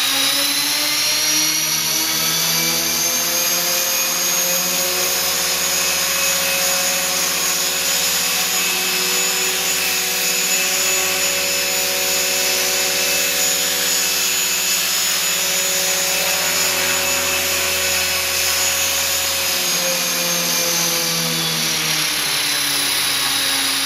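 Small electric RC helicopter hovering: a steady whine from its motor and gears over the whoosh of the rotor blades, with the pitch drifting gently up and down as the throttle is held and adjusted.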